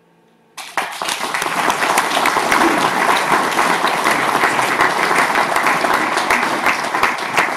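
Audience applauding: the clapping starts suddenly about half a second in and then carries on steadily.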